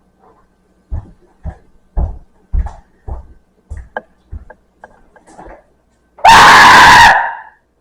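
A run of short thumps about two a second, then, about six seconds in, a very loud scream of fright lasting a little over a second.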